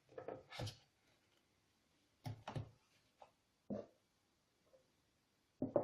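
A few short knocks and clicks of objects being handled, in four brief clusters spread over several seconds.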